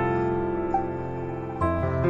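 Soft instrumental background music of held chords, moving to a new chord near the end.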